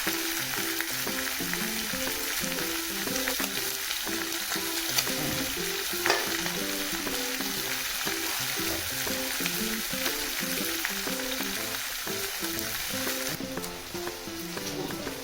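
Food sizzling and crackling as it cooks on a hot surface, the sizzle easing off near the end, with background music playing a simple stepped melody.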